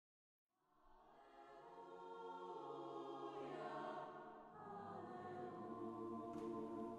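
Faint choral music fading in about a second and a half in: a choir singing long held chords, with a short break between phrases about halfway through.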